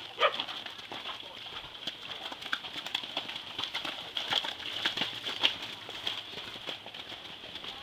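Hoofbeats of horses trotting on a dirt show arena: irregular soft thuds over a steady high-pitched background hiss.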